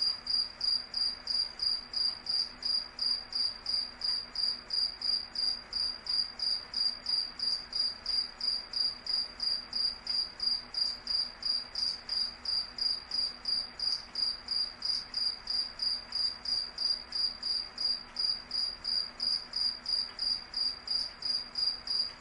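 A cricket chirping steadily in a high, even-pitched trill that pulses at a regular rhythm of about three chirps a second.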